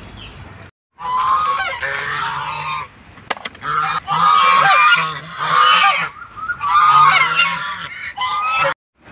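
Domestic geese honking loudly in three long bouts of overlapping calls, several birds calling at once while they come to be fed.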